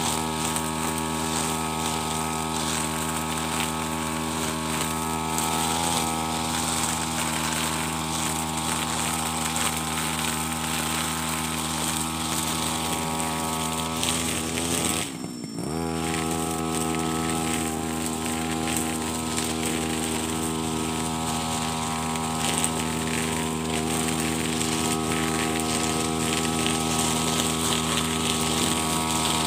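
Petrol brush cutter fitted with nylon trimmer line, running steadily at high revs. About halfway through the throttle is let off: the engine pitch drops briefly, then climbs back to full speed.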